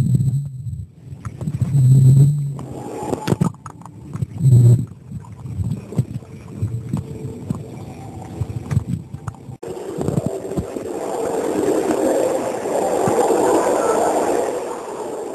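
Muffled underwater sound from a camera held under the water in a swimming pool: scattered knocks and gurgles, with a low hum that comes and goes in the first few seconds. About ten seconds in it changes to a steadier rushing of water lapping at the camera at the surface.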